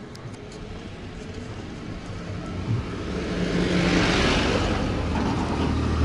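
A motor vehicle drawing near on a road, its engine and tyre noise growing louder over the first four seconds and staying loud.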